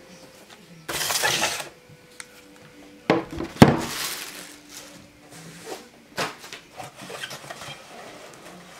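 Handling noises: plastic wrap crinkling in two bursts, about one second and three and a half seconds in, and a few sharp knocks of a cordless drill and its cardboard box on a wooden tabletop, the loudest about three and a half seconds in.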